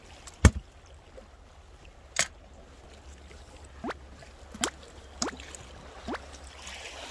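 A plastic cooler lid shut with a sharp clack about half a second in, then a lighter click. Under it a steady low wash of sea water on rocks, with a few short rising swishes in the second half.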